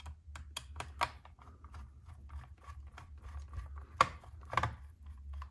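Hex driver turning a small screw into an RC car's plastic chassis: scattered light clicks and ticks of metal on plastic, with two louder clacks about four seconds in, over a low steady hum.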